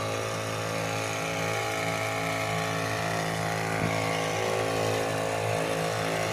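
Motor of a powered backpack crop sprayer running steadily while it sprays, a constant hum made of many even tones that holds one pitch throughout.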